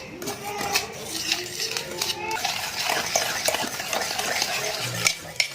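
Eggs and powdered sugar being beaten by hand in a bowl, the utensil clicking and scraping rapidly and unevenly against the bowl, with a couple of sharper knocks near the end.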